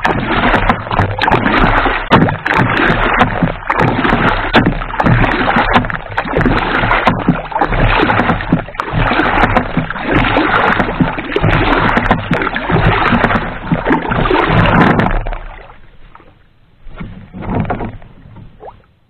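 Paddle strokes beside a small outrigger boat: loud splashing and rushing water that swells with each stroke about every two seconds, with sharp knocks of the paddle. The paddling stops about fifteen seconds in, leaving only a few quieter splashes.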